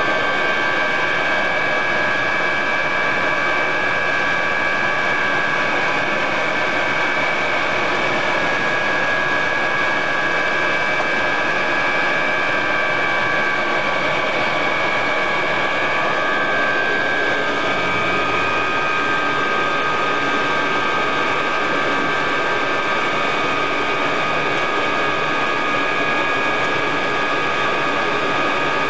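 SNECMA Atar 09C turbojet of a Mirage III heard from inside the cockpit, running on the ground. It makes a steady high whine of several tones over a constant rush, and the tones shift slightly in pitch a little past halfway.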